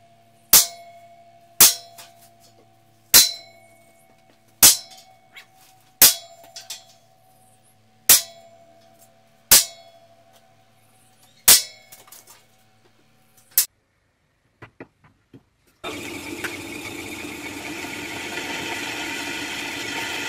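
Hammer striking a centre punch on steel angle iron, marking hole centres for drilling: nine sharp blows one to two seconds apart, each leaving the steel ringing. About sixteen seconds in, a drill starts running, its bit cutting into a steel bar, the sound slowly growing louder.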